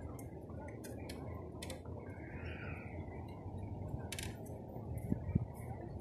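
Steady low rushing of waterfall water, with scattered light clicks and scuffs of footsteps on a wooden boardwalk and two dull thumps near the end.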